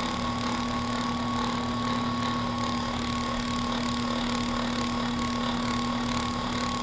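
Handheld electric massager running steadily against the shoulder, a constant motor hum with an even pitch.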